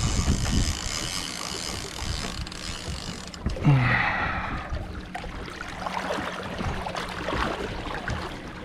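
Water sloshing against the side of a drifting boat, with a fishing reel's clicker ticking as line is let out in the first few seconds. About three and a half seconds in, one short louder sound with a falling tone.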